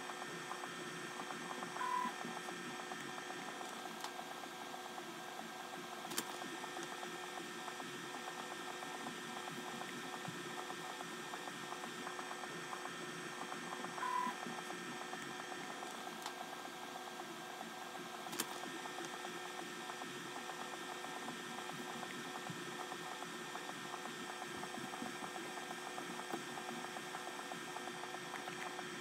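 Creality Ender-3 S1 Pro 3D printer running as a pen plotter, a steady hum from the machine with a couple of faint clicks.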